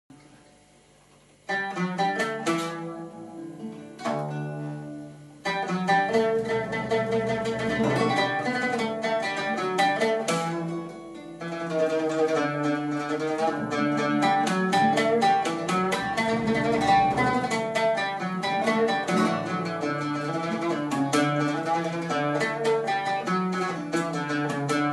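An oud and a classical acoustic guitar playing an instrumental passage of plucked notes. After a moment of quiet it opens with a few separate phrases with short pauses between them, then runs on as continuous playing from about five seconds in.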